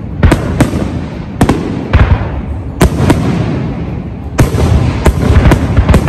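An aerial fireworks display, with shells bursting in sharp bangs over a continuous low rolling rumble. The bangs come a second or so apart at first, then in a quick volley of several near the end.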